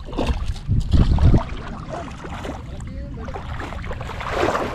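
Wind buffeting the microphone in gusts, loudest about a second in, over a steady wash of sea water.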